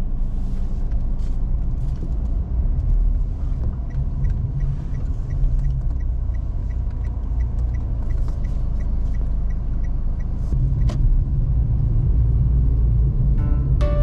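Daihatsu Mira Cocoa driving, with a steady low rumble of engine and road noise. A faint, even ticking, about three a second, runs through the middle, and there is one sharp click a little before the end.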